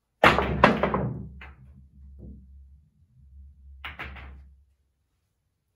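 Pool jump shot: the cue strikes the cue ball with a sharp clack, and a louder clack follows about half a second later as balls collide. Balls then roll across the table with a low rumble and fainter knocks off the cushions, and about four seconds in there is a quick run of clacks.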